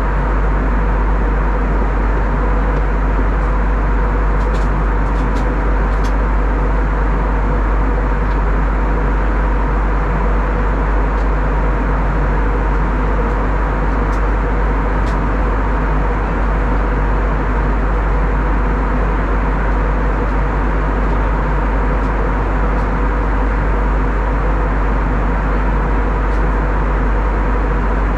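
Steady cabin noise inside an Airbus A321neo airliner in flight: the low rumble of its Pratt & Whitney geared turbofan engines and the rush of air over the fuselage, with a faint steady hum.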